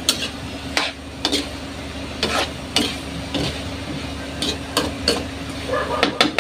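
A metal spoon scraping and clinking against a frying pan as chunks of pork, carrots and potatoes are stirred: about a dozen irregular clicks over a steady low hum.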